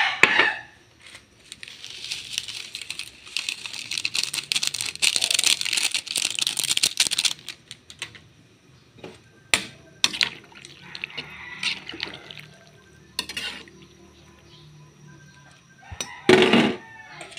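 Broth simmering in a pan of sliced sponge gourd, a crackling hiss of bubbling liquid for several seconds, with a few sharp clicks. A rooster crows briefly at the start and again near the end.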